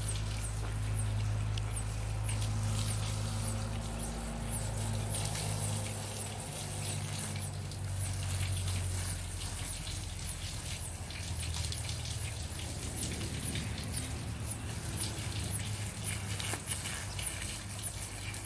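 Water from a garden hose spraying onto a horse's wet coat and splattering onto the ground, a constant patter of drops. A steady low hum runs underneath, and a faint high chirp repeats about twice a second.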